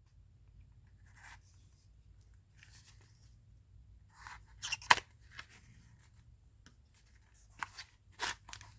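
Soft rustling of something handled in the hands, with a few sharp clicks; the loudest click comes about five seconds in and two more near the end.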